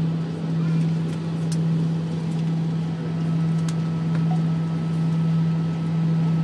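Cabin noise inside an Airbus A319 taxiing: the idling jet engines and air system give a steady low hum over a constant rush of air, with a few faint clicks.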